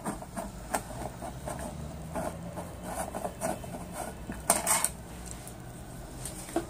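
Hands handling a connector and wiring on a TV main board: small scattered clicks, taps and rubbing, with a cluster of louder clicks about four and a half seconds in.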